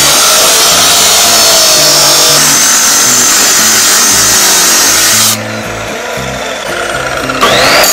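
Abrasive chop saw cutting through a flat steel bar, a loud, steady grinding shriek with sparks. About five seconds in the cutting noise drops out abruptly. Near the end a rising whine comes back in.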